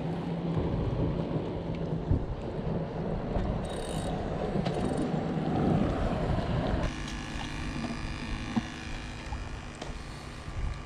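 Wind buffeting the microphone over water lapping on a rocky shore. About seven seconds in, the rushing sound cuts off abruptly and gives way to a quieter, steady hum made of several even tones.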